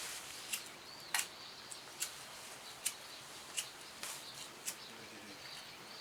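Small fire of wood scraps in a box-type fire stove crackling, with a sharp pop about once a second. A bird chirps over and over in the background.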